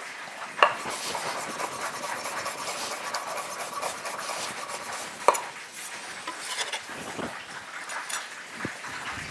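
Chef's knife chopping capers on a wooden cutting board: quick light taps, with sharper knocks about half a second in and about five seconds in. Near the end the chopped capers are scraped off the blade into a small glass bowl.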